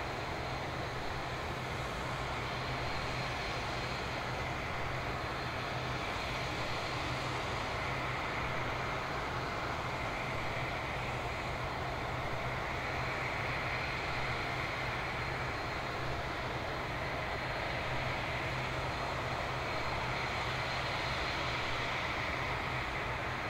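Steady whine and rumble of a jet airliner, an Airbus A350-900, on the ground, holding an even pitch with no spool-up or fall.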